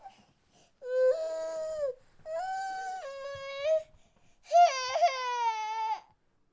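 Baby crying: three drawn-out cries, each one to one and a half seconds long, with short pauses for breath between them.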